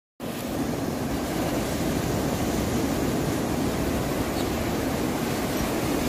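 Ocean surf washing in around concrete pier pilings: a steady rush of waves, with a low rumble of wind on the microphone.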